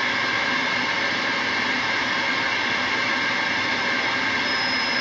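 CB radio static: a steady rush of hiss through the radio's speaker as a channel stays open with no voice on it.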